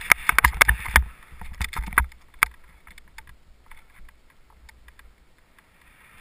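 Skis sliding through powder snow, with a quick run of sharp clicks and knocks in the first two and a half seconds, then quieter sliding with only a few faint clicks.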